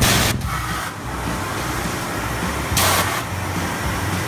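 Foam-ball air cannons of an indoor play structure firing: two short hissing blasts of air, one at the start and one about three seconds in, over a steady low blower hum.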